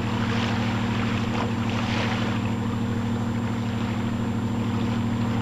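A fishing boat's engine running steadily with a fast, even throb, under a light hiss of wind and sea.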